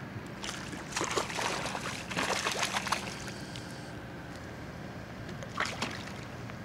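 Hooked skipjack herring splashing at the water's surface beside the boat as it is reeled in, in a run of splashes from about one to three seconds in and a short one again near the end.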